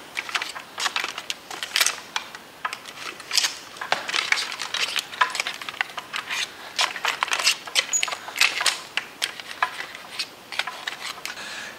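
Plastic ribs of an anatomical skeleton model clicking and rattling as a push dagger blade is worked in between them: many light, irregular clicks and knocks.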